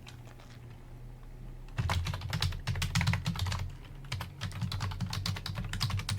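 Rapid typing on a computer keyboard, a quick run of key clicks that starts about two seconds in, entering a user password at a text-based installer prompt.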